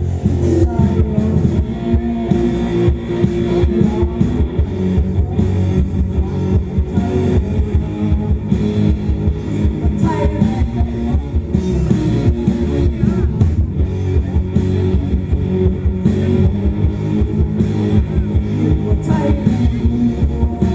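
Live rock band playing through a PA: electric guitars and drums, with a female vocalist singing.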